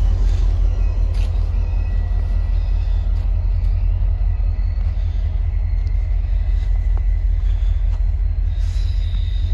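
Steady deep rumble of a VIA Rail passenger train rolling away down the track, its EMD F40PH diesel locomotive on the near end, with a faint steady high tone above it.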